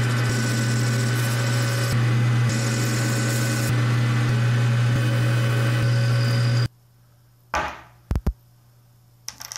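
Metal lathe running and turning a piece of aluminum stock, a steady motor and gear hum with cutting noise over it. It cuts off suddenly after about six and a half seconds, followed by a few faint knocks.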